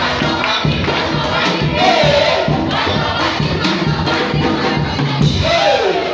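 Church congregation shouting and cheering in praise, with a few voices calling out, over music with a steady beat.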